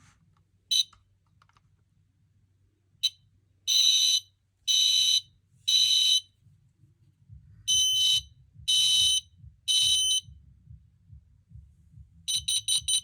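SC9120B smoke alarm sounding its test: two short chirps, then its piezo horn beeps in the temporal-three evacuation pattern, three long high beeps, a pause, three more, followed by a quick burst of short beeps near the end.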